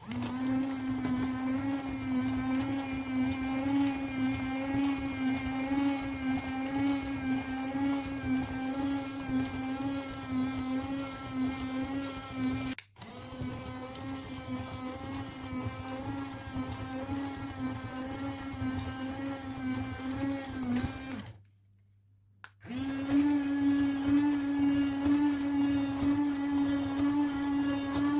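Small battery-powered electric motor of a BIOPOD toy running with a steady, even whir. It cuts out briefly about halfway through and again for about a second near the end, then starts again at a slightly higher pitch.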